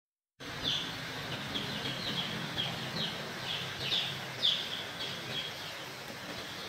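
A flock of young domestic chicks peeping: many short, falling cheeps, overlapping and repeating about twice a second, over a steady background hiss.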